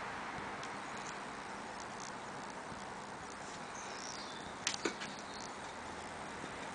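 Steady outdoor background hiss, with a quick cluster of three sharp clicks a little under five seconds in and faint high chirps just before them.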